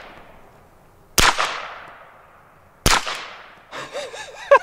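Two shots from a suppressed 9mm pistol, about a second and a half apart, each a sharp crack followed by a tail that dies away over a second or so.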